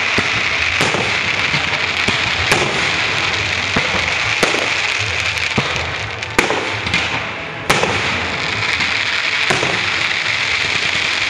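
Fireworks display: a steady crackling with sharp bangs of bursting shells every second or two, the loudest about six and a half and eight seconds in.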